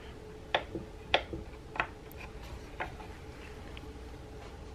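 Faint, irregular clicks of a steel breech tang knocking and rubbing in its inlet in a wooden rifle stock as it is worked straight up and down, transferring ink to mark the high spots of the wood. About five clicks over a few seconds.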